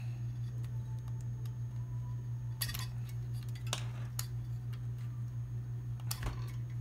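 A few small, sharp clicks and clinks of cable connectors being unplugged from a dental scanner's main circuit board, over a steady low hum.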